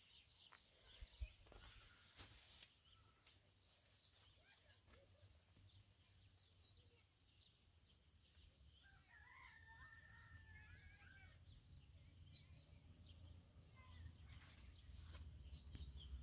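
Near silence with faint bird chirps here and there, and about nine seconds in one drawn-out bird call lasting about two seconds. A low rumble grows near the end.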